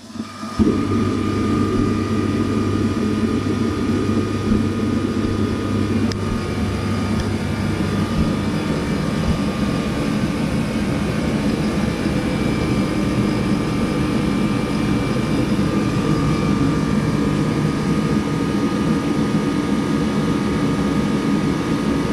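Protemp PT-70T-AFA 21 kW diesel forced-air heater starting: its fan and burner come on with a quick rise, then run with a steady rushing noise and a faint whine, and a low hum drops out about eight seconds in. The burner is getting a little too much diesel.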